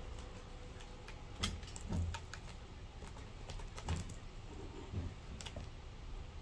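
Scattered light clicks and taps, some with a soft thump, as a kitten paws and claws at a sisal-rope scratching post and its hanging ball.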